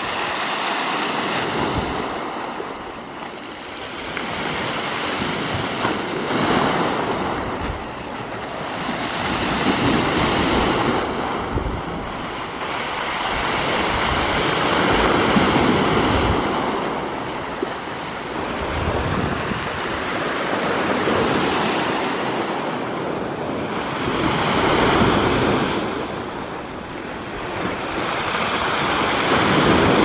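Sea waves breaking on rocks and washing over a pebble beach, the surf swelling and falling back in slow surges about every five seconds.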